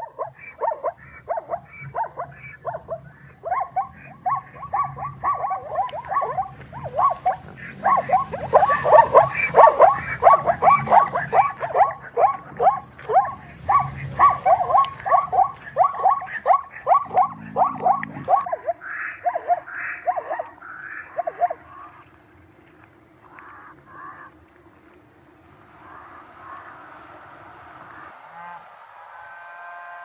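An animal calling over and over in short calls, about two a second, for some twenty seconds before they thin out and stop. Near the end a steady high buzz starts.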